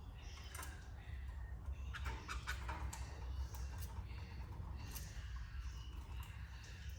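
Canaries moving about in their cage: scattered small taps, scratches and clicks, with a cluster about two seconds in, and a few faint high chirps. A steady low hum runs underneath.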